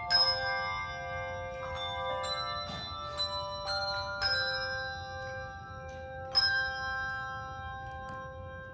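Bells ringing a tune: struck notes of several pitches overlap and ring on. The last strong strike comes about six seconds in, and the ringing fades away near the end.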